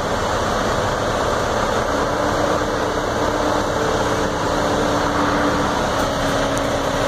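Heavy engine running steadily at a low, even speed, from the vehicle moving the house.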